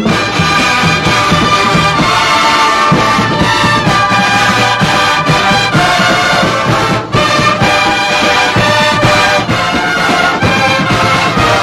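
A drum and bugle corps playing loud, full brass on bugles over its drum line, with sharp drum strokes cutting through the sustained chords.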